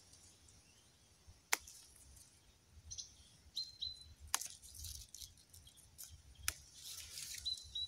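Mint being picked by hand from a bush: faint rustling of leaves and three sharp snaps of stems breaking. A bird chirps two pairs of short high notes, a few seconds apart.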